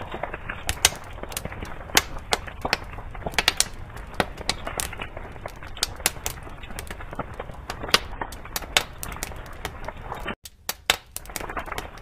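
Fire sound effect: burning fire crackling and popping irregularly over a steady rush of flame. It cuts out for a split second about ten seconds in, then carries on.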